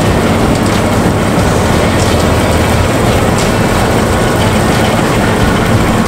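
John Deere 8820 turbo combine harvester running steadily while harvesting barley, its diesel engine humming under the dense noise of the threshing machinery.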